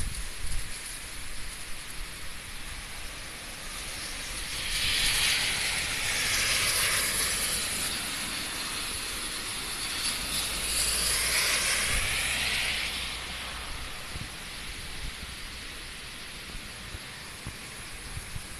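Typhoon rain and wind: a steady hiss of heavy rain, with a loud rushing hiss that swells up twice in the middle before settling back.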